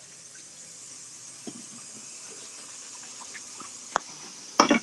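Kitchen tap running steadily into a sink while someone washes up, with a sharp knock about four seconds in and a short clatter near the end.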